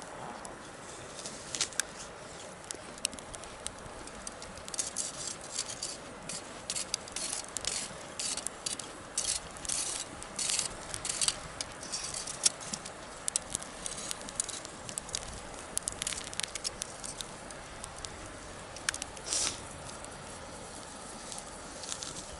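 Wood bonfire crackling: sharp pops and snaps over a steady hiss of the flames. The pops come thickest in a run through the middle and thin out towards the end.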